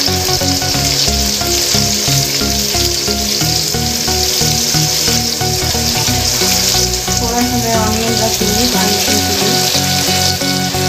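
Sliced onions sizzling steadily in hot oil in an aluminium kadhai, the start of frying them with garlic and ginger. Soft background music plays underneath.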